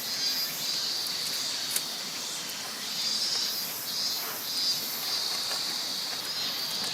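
A chorus of insects calling steadily, a high continuous chirring with a second, higher call pulsing on and off over it.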